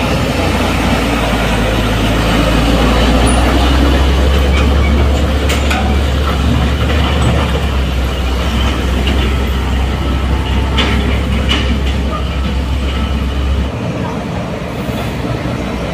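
Heavy truck's diesel engine running close by with a steady low drone, which drops away suddenly near the end, over traffic noise and a few short sharp sounds.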